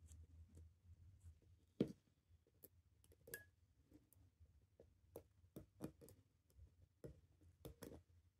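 Faint, scattered clicks and light taps of steel watchmaker's tools against the parts of a Seiko 6138 chronograph movement held in a movement holder, the sharpest click about two seconds in.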